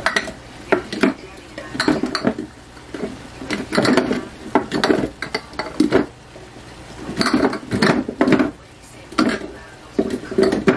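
Small metal spice tins clinking and knocking against one another in irregular clusters as a drawer full of them is rummaged through.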